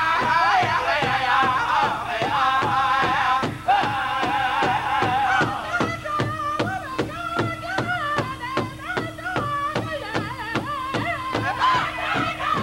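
Powwow drum group singing in unison, with high voices over a large shared bass drum struck together by several drummers in a steady beat of about three strokes a second. The singing leads in the first half; from about halfway through the drum strokes stand out more.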